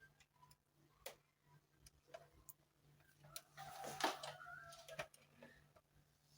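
Faint scattered clicks and knocks, with a louder scraping rustle that carries a few brief squeaky tones about three and a half to five seconds in.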